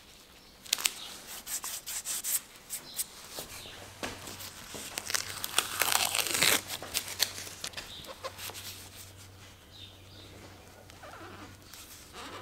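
Yellow masking tape handled and peeled back from a primed body panel in gloved hands: a run of small clicks and crinkles, then a longer rasping tear about six seconds in.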